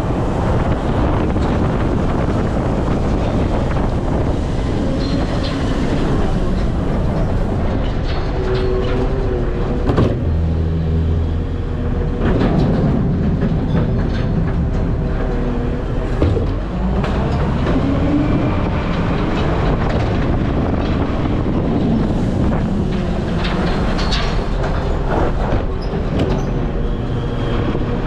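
Strong wind buffeting the microphone over the steady rumble of a heavy vehicle, with a few sharp clicks.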